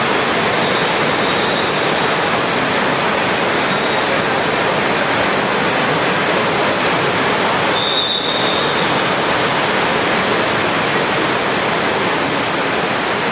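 Steady, dense hubbub of a crowded metro platform full of waiting passengers, with a short high beep about eight seconds in.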